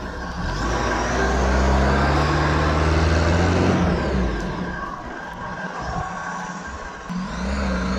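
UAZ off-roader's engine revving hard under load, its pitch rising over the first few seconds, with the rush of spinning tyres throwing dirt. The revs drop off about four seconds in and pick up again near the end.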